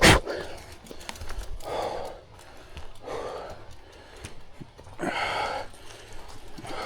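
A person breathing hard, with a loud breath or gasp about every second and a half. A sharp knock comes right at the start.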